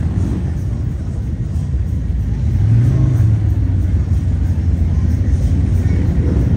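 Engines of a line of cruiser and touring motorcycles rumbling as they ride slowly past in a procession. The low rumble swells about three seconds in as a bike draws close.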